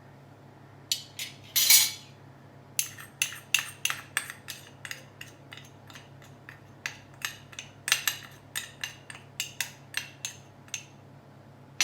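A metal teaspoon clinking and tapping against a bowl and container while levelled spoonfuls of turmeric powder are added to oil. There is a brief scrape near the start, then a long run of quick, irregular taps.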